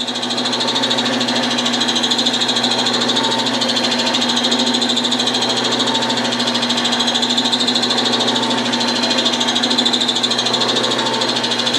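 Small wood lathe's motor running steadily at speed after spinning up over the first second, a steady hum with a high whine, as a paper towel of friction polish is held against the spinning bottle-stopper blank.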